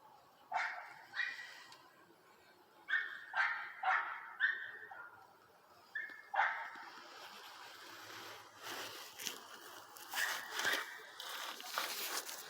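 A dog barking in short, pitched barks, about eight in the first half, followed by a rougher, noisier stretch with several sharp clicks.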